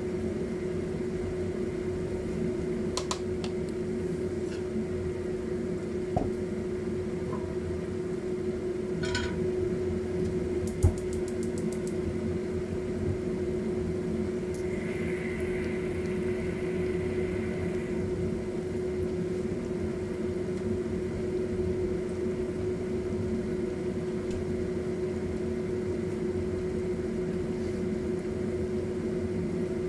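Spring rolls deep-frying in a pot of oil, a steady sizzle under a constant machine hum. About 11 seconds in there is a quick run of clicks and a sharp knock as a pan is changed on the gas hob.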